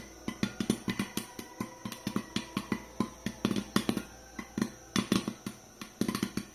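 Popcorn kernels popping inside a covered metal pot: sharp, irregular pops, several a second, some coming in quick clusters.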